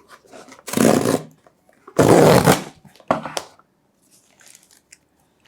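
Shipping packaging for a phone being torn and pulled open by hand: two loud rustling, tearing bursts, one about a second in and one about two seconds in, then a shorter one and faint handling of the package.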